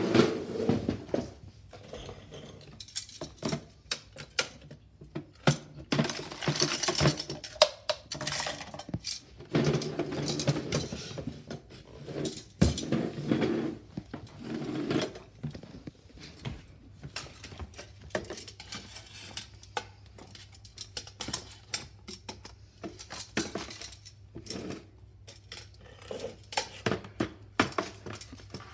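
Small plastic toy wheelie bins, held in metal tongs, knocking and clattering against a plastic tub as they are tipped, with paper scraps rustling at times. The knocks come irregularly.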